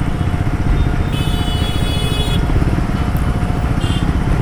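Triumph 400X's single-cylinder engine running steadily as the motorcycle is ridden through the city, with a low pulsing exhaust note. A brief high-pitched tone sounds over it about a second in, and a shorter one near the end.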